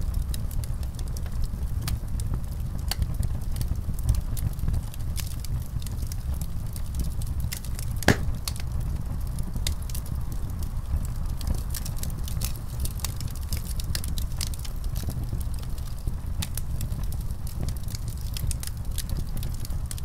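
Fire burning: a steady low rumble with frequent sharp crackles, and one louder pop about eight seconds in.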